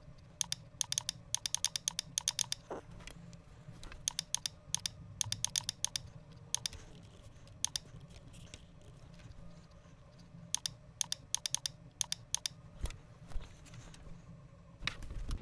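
Typing on a computer keyboard in short runs of quick keystrokes, with single clicks in between, over a low steady hum.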